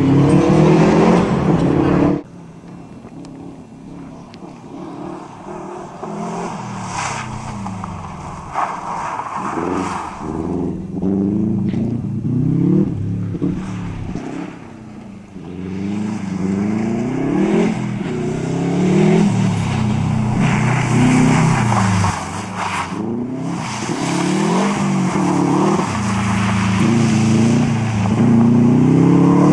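Subaru Impreza rally car's flat-four engine revving hard up through the gears and lifting off again and again, its pitch repeatedly climbing and dropping as it drives a loose gravel stage; louder toward the end. An abrupt cut from a louder sound comes about two seconds in.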